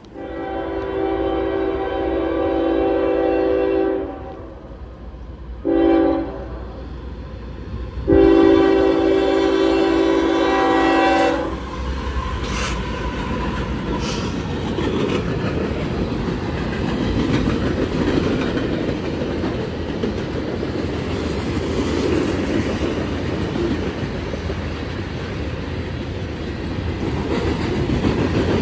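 CSX freight locomotive's air horn sounding a long, a short and a long blast, a chord of several notes. Then the train passes with a steady rumble of wheels on rail and clickety-clack over the rail joints.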